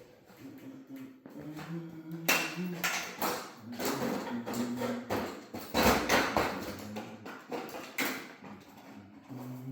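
Irregular knocks and taps from sheet-metal ductwork being handled and fastened during a duct install.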